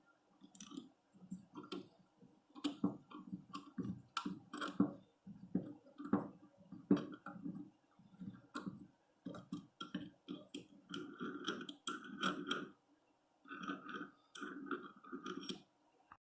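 A run of irregular knocks and clicks, several a second with short pauses, from the metal parts of a wood vise and hand tools being handled during reassembly.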